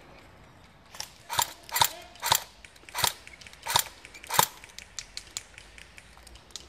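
Airsoft gun firing single shots, about seven in quick succession, each a sharp mechanical snap of the gun's mechanism, followed by a few fainter clicks.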